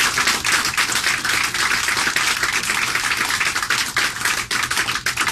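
Small group of people applauding, a dense, steady patter of claps.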